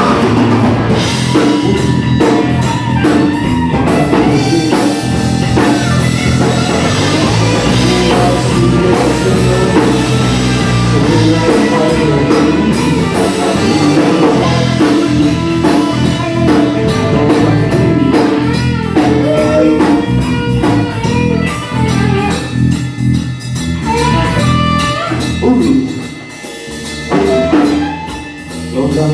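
Rock and roll band playing a boogie instrumental stretch, with electric guitar over a drum kit and bass and no vocals. The band drops back briefly twice near the end.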